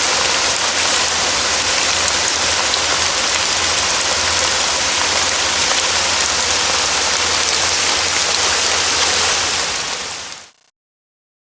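Steady heavy rain falling in a forest, a dense even hiss that fades out quickly near the end and stops.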